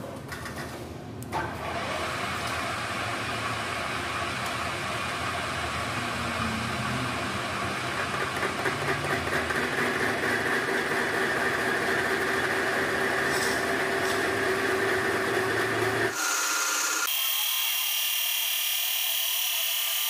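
Metal lathe running while a boring bar cuts the weld-built-up bore of a bearing housing, a steady mechanical machining noise that starts about a second in. About 16 seconds in the sound changes abruptly to a thinner, high-pitched buzz with no low end.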